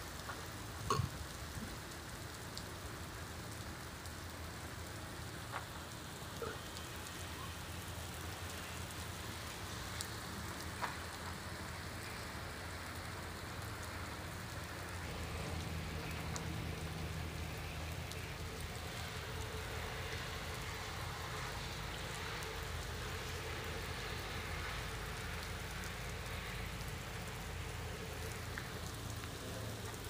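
Steady rain falling on a flooded paved road and standing puddles, with a few sharp drip ticks, growing slightly heavier in the second half.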